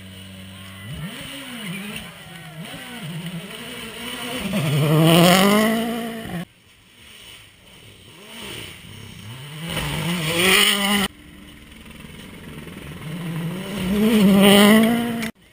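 Three rally cars in turn racing past on a gravel stage, each engine note climbing and wavering as the car accelerates toward the microphone and peaking loud as it goes by, the last a Ford Fiesta. Each pass cuts off suddenly, about six, eleven and fifteen seconds in.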